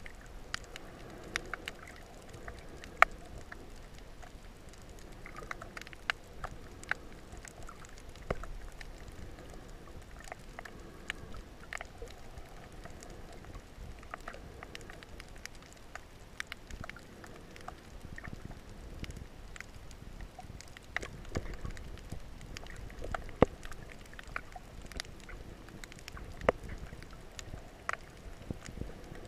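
Underwater ambience heard from a submerged camera: a low rumble of moving water with scattered sharp clicks and crackles, a few a second, now and then a louder one.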